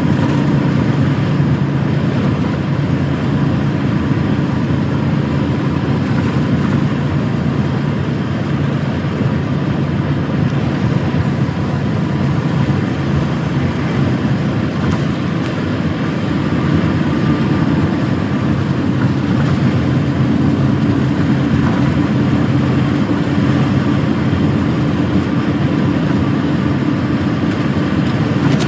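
Truck driving on a country road: the steady drone of its diesel engine with tyre and road noise, easing off a little around the middle and then building again.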